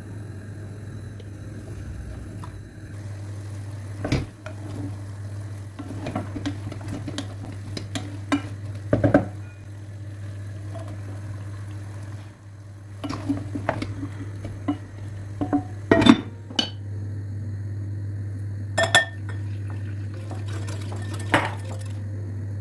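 Pots, dishes and cutlery clinking and knocking at irregular moments during cooking, with a few sharper clinks, over a steady low hum.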